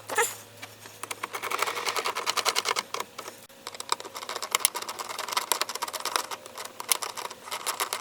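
Rapid, irregular clicking and tapping, many small hard clicks in quick runs.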